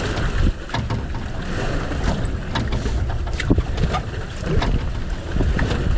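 Wind buffeting the microphone over a steady low rumble of wind and water around a small boat at sea, with a few scattered light knocks and clicks on deck.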